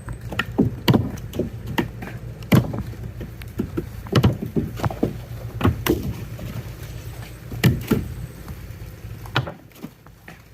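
Irregular hard knocks and thuds, several a second at times, over a steady low hum from a Jiangdong 1125 single-cylinder diesel boat engine; the knocking eases near the end.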